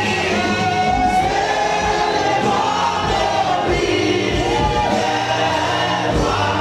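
Gospel choir singing with live band accompaniment.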